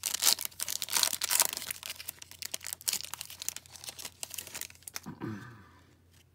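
The shiny plastic wrapper of a small trading-card pack is torn open and crinkled by hand: a dense run of crackling and tearing that thins out about four and a half seconds in, as the cards are slid out.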